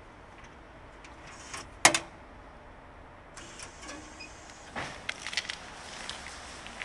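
A door latch or handle clacks sharply once, about two seconds in. From about halfway through, a steady hiss comes in from the wash bay, with scattered clicks and knocks.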